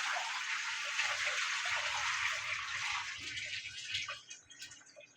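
Water running steadily, as from a tap, tapering off about three to four seconds in.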